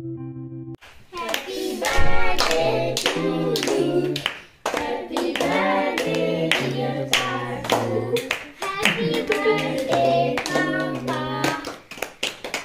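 A small group of people singing a birthday song together while clapping along in a steady rhythm, with one loud thump about two seconds in.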